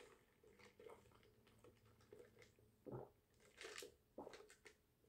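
Near silence, with a few faint, short sounds of a drink being sipped through a plastic straw.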